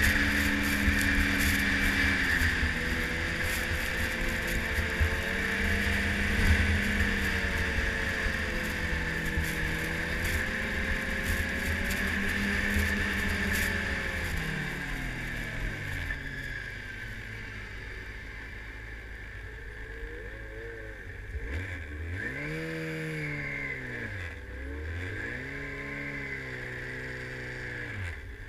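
Yamaha snowmobile engine running at steady trail speed, then dropping in pitch as the sled slows about halfway through. Near the end it makes a few short rises and falls in pitch as it creeps up to a stop.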